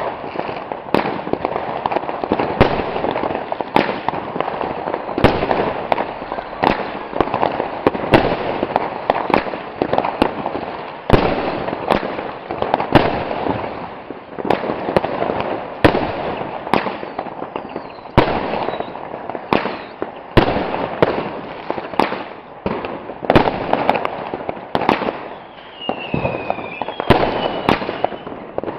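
Consumer fireworks going off: a rapid string of sharp bangs over continuous crackling, with a few falling whistles near the end.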